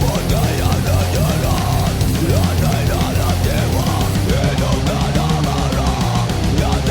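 Heavy metal music with distorted electric guitar, lead lines bending in pitch over a steady low end.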